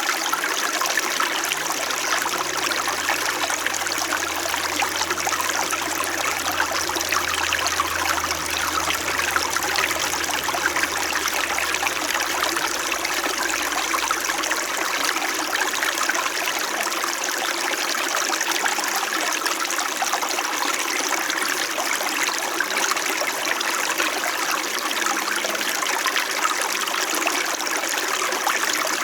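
Small winter mountain stream flowing and trickling steadily and gently.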